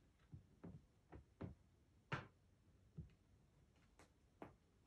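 A cat rummaging in a pile of clothes against a plastic drawer unit: scattered faint taps and rustles, about eight in all, the loudest a little past two seconds in.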